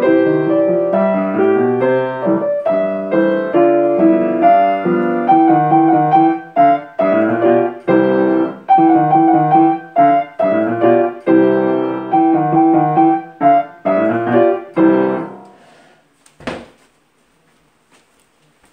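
A grand piano is played: a lively piece of short, detached chords and notes that stops about three-quarters of the way through. A single sharp knock follows about a second later, then faint small noises.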